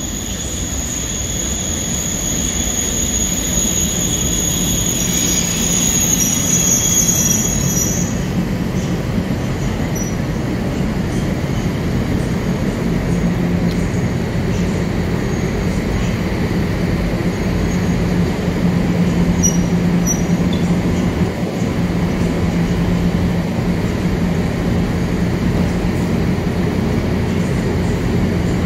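EP07 electric locomotive's starting-resistor cooling blowers running with a loud, steady whirring hum. A high squeal sits over it for the first eight seconds and then stops. The hum's low tone grows stronger about halfway through.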